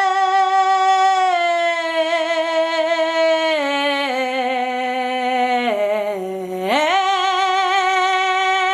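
A woman's voice singing one long drawn-out note with vibrato. The pitch steps down several times, then swoops back up about seven seconds in and holds.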